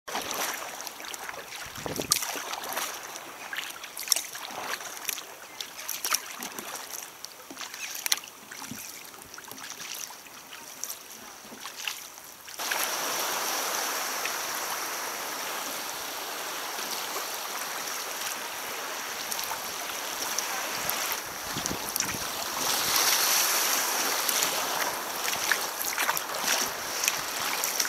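Water lapping and slapping against a sea kayak's hull as it is paddled, with irregular small splashes. About halfway in, the sound changes abruptly to a louder, steady rushing hiss of water.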